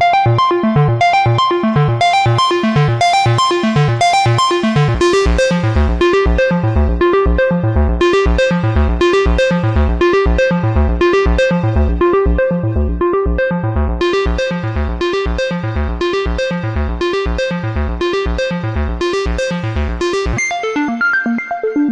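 Moog Subsequent 25 analog synthesizer playing a sequence: a fast, even pattern of short repeating notes over a pulsing bass line. Near the end the bass drops out, leaving higher notes.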